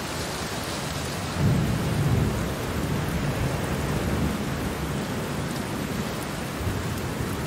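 Steady rain with low rolling thunder, the loudest rumble coming about a second and a half in.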